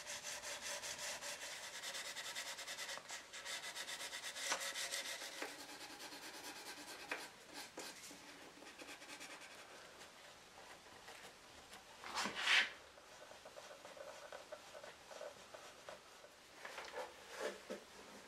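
Fine 800-grit sandpaper rubbed by hand over a shellac finish on wood in quick, even strokes, then a softer cloth polishing pad rubbed over the wood, with one louder scrape about twelve seconds in.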